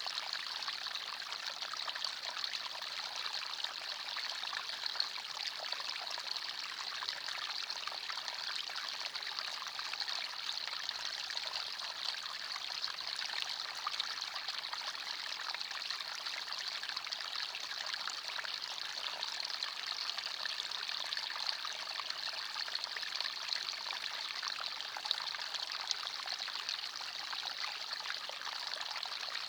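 Forest stream of shallow water trickling and babbling over stones, a steady hiss-like splashing that sits mostly in the upper range with many small splashes and no change.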